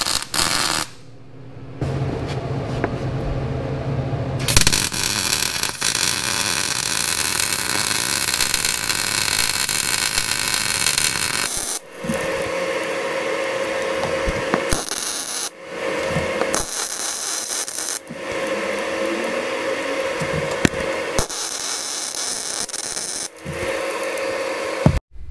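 A Lincoln 216 MIG welder arc-welding a crack, with a steady crackling hiss that breaks off briefly about a second in and stops about twelve seconds in. After that a power grinder runs in several short spells with a steady whine, stopping and starting again between spells.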